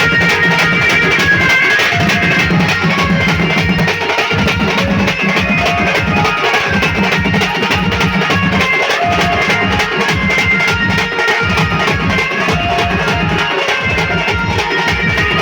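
Live melody band music: drums keep a steady, busy beat under an instrumental melody line.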